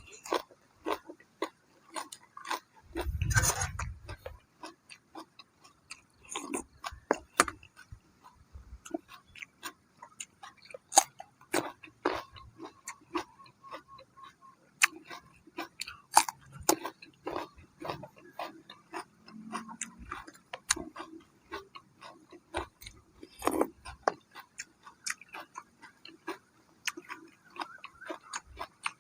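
Close-up chewing and crunching of crisp food, many sharp irregular crunches throughout, with a brief low rumble about three seconds in.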